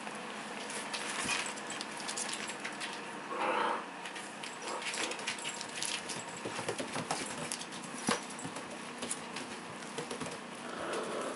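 Puppies playing: scattered light clicks and patter of small paws and toys, with a brief louder noise about three and a half seconds in.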